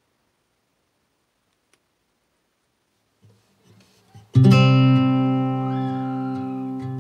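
Near silence, then a few faint soft sounds, then guitar background music starts suddenly with a strummed chord about four seconds in and carries on.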